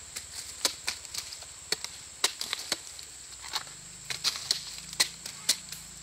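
A series of sharp, irregular knocks and cracks, about ten in six seconds, over a faint steady high-pitched whine.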